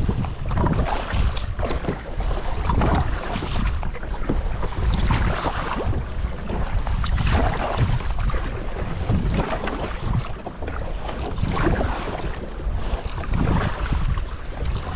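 Double-bladed kayak paddle strokes splashing into the sea at a steady pace, roughly one every two seconds, with wind rumbling on the microphone throughout.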